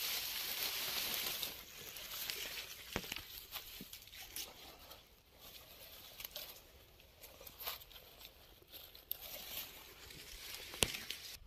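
Rustling and crinkling of a cloth and dry grass as a shot black francolin is handled, with scattered small crackles. Louder for the first couple of seconds, then softer.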